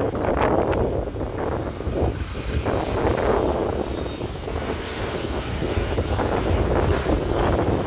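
Jet noise of a Boeing 737-800 on landing approach passing low overhead, its CFM56 turbofans running steadily. Gusts of wind buffet the microphone over it.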